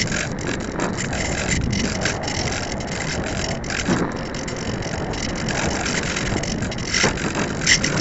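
Airflow rushing past a keychain camera mounted on a discus-launch glider in flight: steady wind noise with a rapid rattle of small clicks from the camera and airframe.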